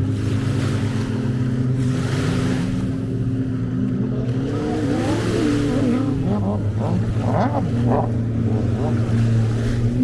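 An engine running steadily at a constant pitch, a low drone with a hum.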